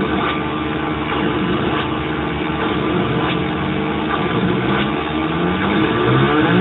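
Nova Drone analog synthesizer playing a dense, continuous drone of layered steady tones, with pitch glides sweeping up and down through it as a Raspberry Pi sequences its oscillators and filters. Near the end, several rising glides stack on top of one another.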